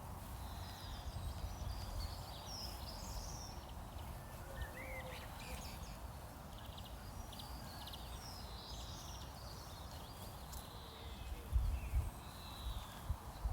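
Several songbirds chirping and singing over a steady low outdoor rumble, with a few low thuds near the end.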